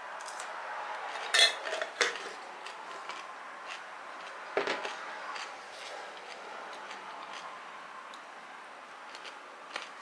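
Crunchy bites into a pickled gherkin and chewing, with a few sharp crunches, the loudest about a second and a half in and another soon after.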